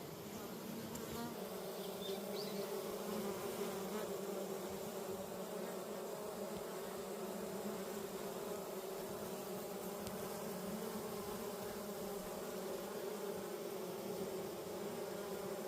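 Honeybees buzzing in a steady, pitched hum of many bees at a hive, growing a little louder about a second and a half in.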